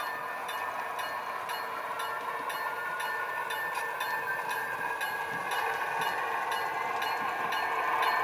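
Model railroad diesel switcher in New Haven paint running with a string of freight cars: a steady hum with held tones that grows louder as it comes closer, with a pitch rising in the second half. Light regular ticks sound a few times a second over it.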